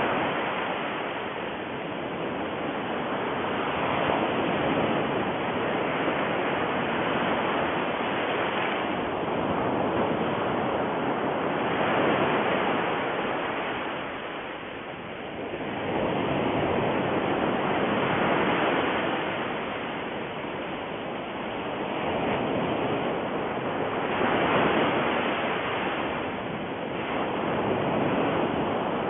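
A steady rushing noise with no distinct events, swelling and fading every four to eight seconds.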